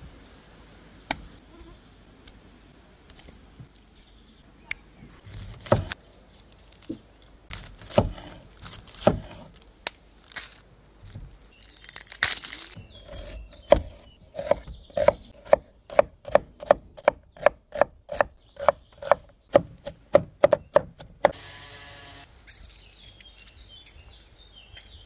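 Kitchen knife dicing an onion on a wooden cutting board: a fast, even run of sharp knocks, about three a second, lasting some seven seconds in the second half. Before it, scattered clicks and knocks as the onion is handled and peeled.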